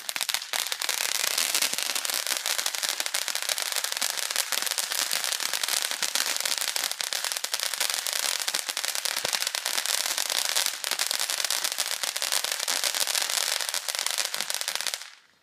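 Ground fountain firework spraying sparks: a steady, dense crackling hiss that cuts off suddenly shortly before the end.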